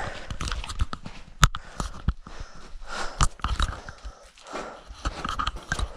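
Footsteps crunching and scuffing on gritty, rocky ground, with irregular scrapes and a sharp knock about a second and a half in and another just past three seconds.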